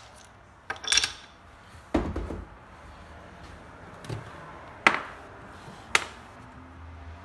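Handling sounds on a countertop: about half a dozen separate sharp clicks and knocks as the grinders, their cords and tools are moved, the sharpest about five and six seconds in.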